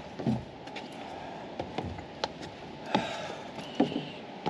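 Irregular footsteps and taps of people walking on a hard trail surface, about two a second.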